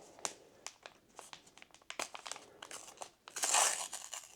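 A foil booster pack wrapper crinkling under the fingers, with light clicks and crackles. About three and a half seconds in comes a louder, brief ripping rustle as the pack is torn open.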